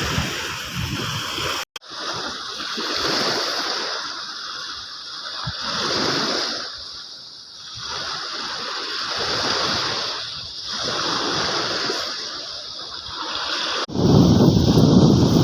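Sea waves washing up a beach and drawing back, swelling and fading about every three seconds. Wind buffets the microphone at the start and again near the end.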